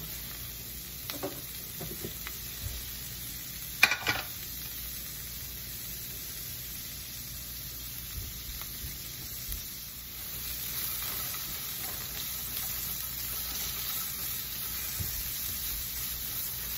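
Chopped carrots and green capsicum sizzling in hot oil in a wok, with a few light knocks as the capsicum pieces land in the pan and one sharp clatter about four seconds in. The sizzle grows louder from about halfway through.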